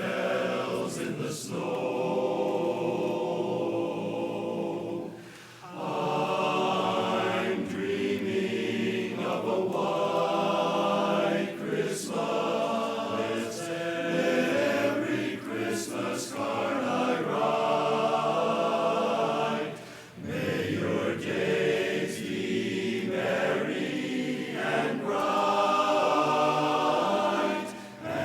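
Barbershop chorus singing a cappella in close harmony, with short breaks between phrases about five and twenty seconds in.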